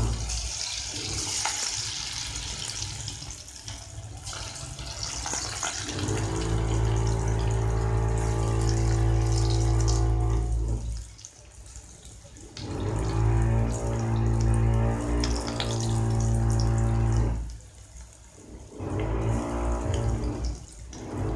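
Moong-dal pakoras frying in hot oil in an iron kadhai, a steady hissing sizzle, strongest in the first couple of seconds as the batter goes in. Background music with long held notes sits over most of it and breaks off twice briefly.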